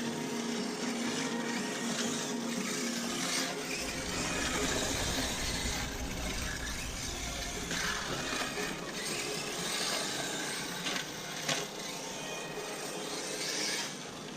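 Radio-controlled car driving on dirt: the electric motor and drivetrain whine steadily with gravelly tyre noise, a heavier rumble partway through and a couple of short knocks near the end.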